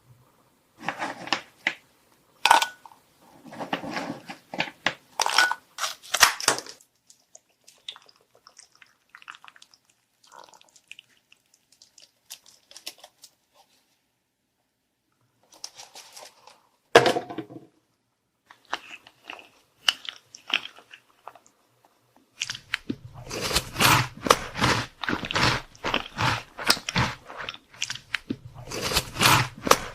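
Close-up biting and crunchy chewing of chocolate treats. A run of crisp bites and crunches, a quieter stretch with faint mouth sounds, one sharp loud crunch a little past halfway, then steady, dense crunching and chewing through the last quarter.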